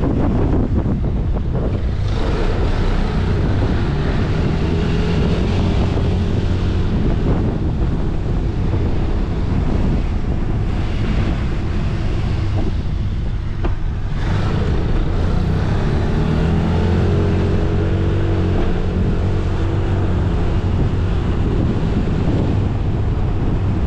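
Motorcycle engine running while riding, its note rising and falling with the throttle, under heavy wind buffeting on the microphone.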